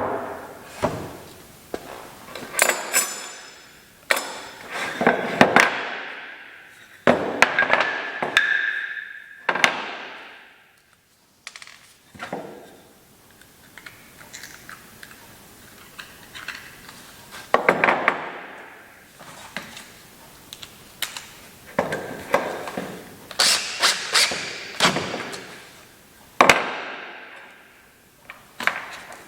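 Workshop handling of wood and tools: irregular knocks, clatters and thunks of wooden pieces, with several second-long scraping or sliding strokes between them.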